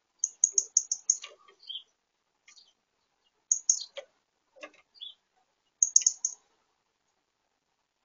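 European goldfinches calling in three quick runs of high, rapid twittering notes, with a few sharp clicks in between.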